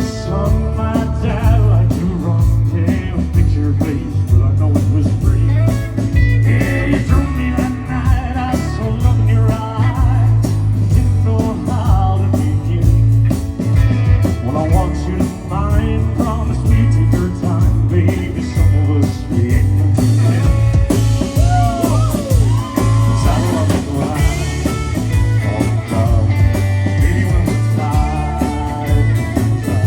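Live band music, guitar-led with a strong steady bass, played in a rock and blues style.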